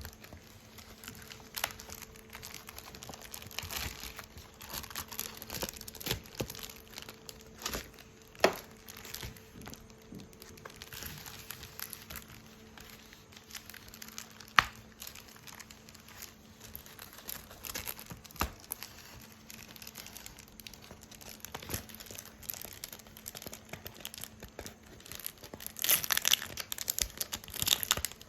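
Packaging and a sticker card being handled and unwrapped, crinkling and rustling irregularly with a few sharp taps. The crinkling gets busier near the end.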